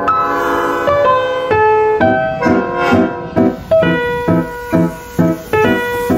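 Piano music: held chords at first, then short repeated chords about twice a second in the second half.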